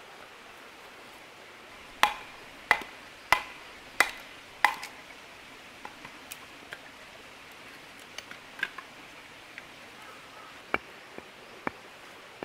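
Hatchet blows splitting a firewood log set on a rock: five sharp strikes about two-thirds of a second apart, each with a brief ring, then lighter scattered knocks and two more sharp strikes near the end.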